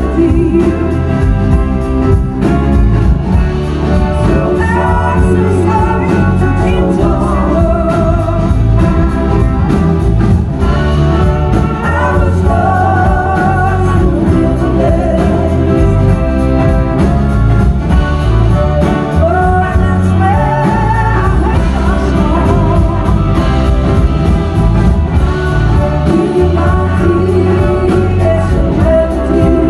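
Live blues-rock band playing loud: a woman's lead vocal over electric guitars, bass and drums, heard from the audience.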